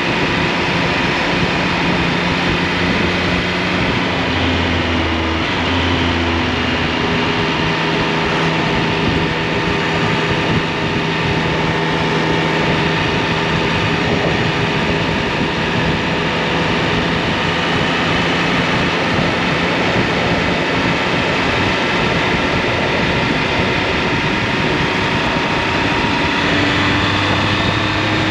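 Triumph Speed Triple 1200 RS's inline three-cylinder engine running at a steady cruise under a constant rush of wind and road noise. Its pitch shifts a few seconds in and drops near the end.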